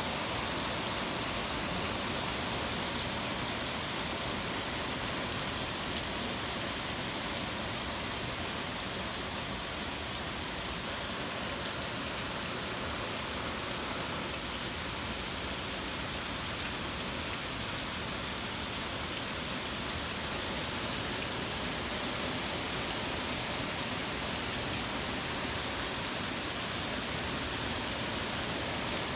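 Heavy rain falling in a steady downpour, an even hiss with no breaks or thunderclaps.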